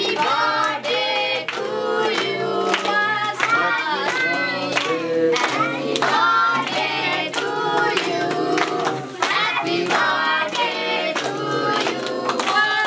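A group of voices singing together, with rhythmic hand clapping keeping time.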